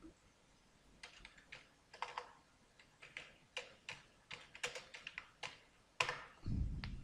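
Computer keyboard typing: a faint, irregular string of key clicks as a search term is typed, with a brief low rumble near the end.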